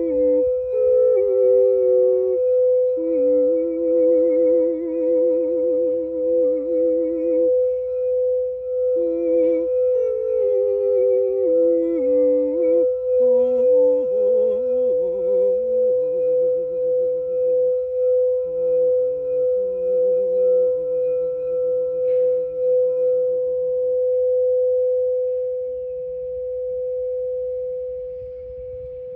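A singing bowl holds one steady tone with a slow, regular pulsing wobble. A voice hums a wavering, vibrato melody beneath it. The humming stops about 24 seconds in, and the bowl rings on alone, growing a little fainter near the end.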